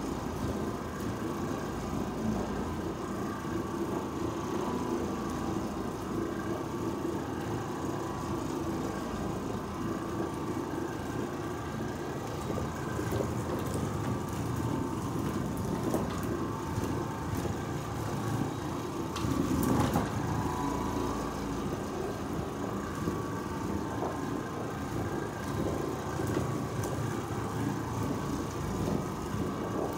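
Oreck Orbiter orbital floor machine running steadily, its motor humming as the pad scrubs carpet. One brief knock comes about two-thirds of the way through.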